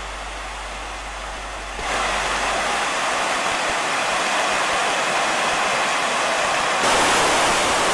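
Water rushing over a dam spillway in flood, a steady noise that grows louder about two seconds in and again near the end.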